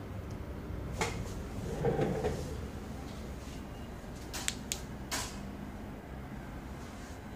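Handling and switching of a small flashlight: a sharp click about a second in, a louder dull knock around two seconds in, and a quick run of sharp clicks between four and a half and five seconds, over a low steady hum.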